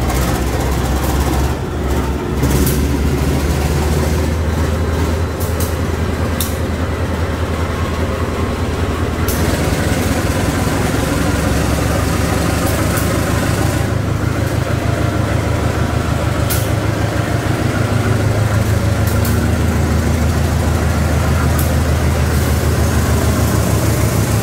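Diesel engine of a KAI CC 201 diesel-electric locomotive running with a steady low rumble as the locomotive moves the train out, a little louder over the last few seconds. A few short sharp clicks are scattered through it.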